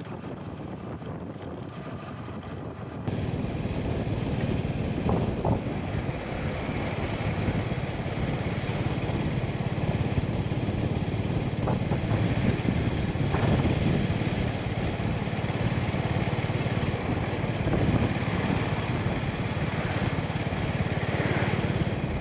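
Honda GB350's single-cylinder engine running, with a steady rush of noise around it. It gets louder about three seconds in.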